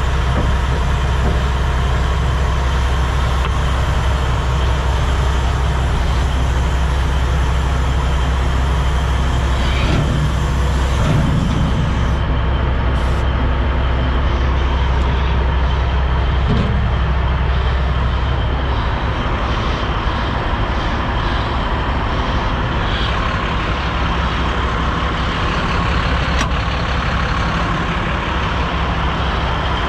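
A heavy truck's diesel engine idling, a steady low rumble, with a couple of brief knocks about ten seconds in and again a few seconds later.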